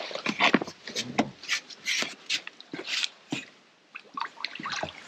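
Fishing tackle being handled: a string of short, irregular knocks and rustles from the rod, reel and landing-net pole as a fish is played toward the net.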